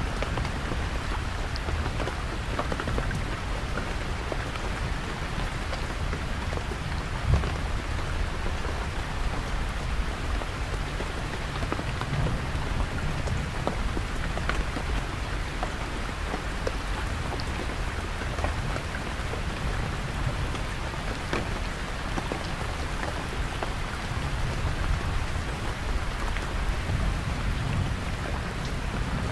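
Heavy rain falling on a canvas tent, a steady hiss with many separate drops tapping on the fabric and one louder tap about seven seconds in. Under it a deep, distant thunder rumble swells and fades.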